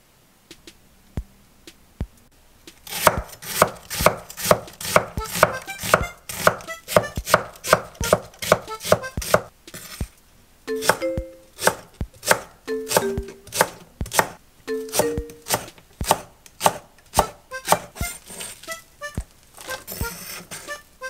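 Kitchen knife chopping through onion and green onion onto an end-grain wooden cutting board. There are a couple of single knocks at first, then a steady run of blade strikes on the wood, about two to three a second.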